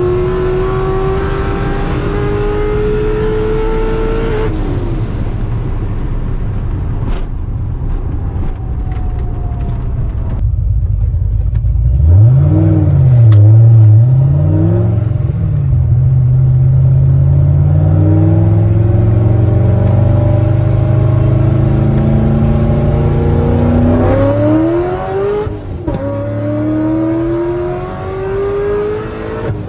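The supercharged LS3 V8 of a 2011 Corvette Grand Sport, heard from inside the car: it pulls hard with a steadily rising pitch, then backs off about four seconds in. After a cut, a few quick throttle blips rise and fall, the engine runs steadily at part throttle, and about twenty-four seconds in it goes to full throttle for a 40 mph roll race, its pitch climbing fast with a gear change about two seconds later.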